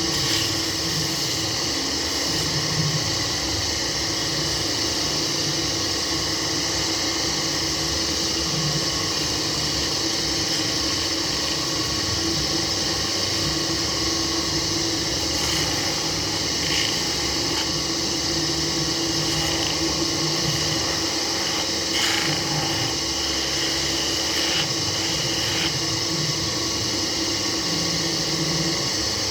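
Wood-turning lathe running steadily with a constant hum, with a few brief scrapes in the second half.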